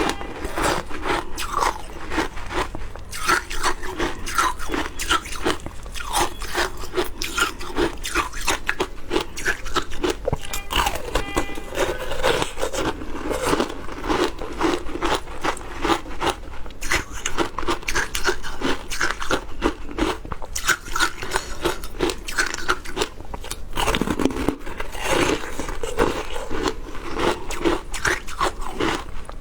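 Close-up crunching of frozen passion fruit ice being bitten and chewed, a rapid, continuous run of crisp crunches.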